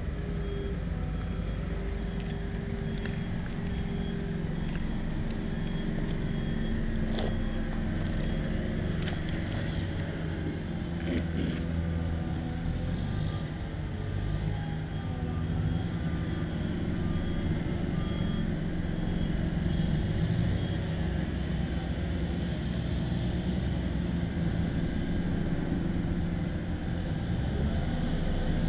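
Steady low engine-like drone of a motor running somewhere out of sight, with a few faint clicks.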